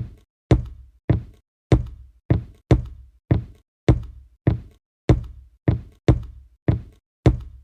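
Stock sound effect of footsteps walking on a wooden floor, even hard steps at about two a second.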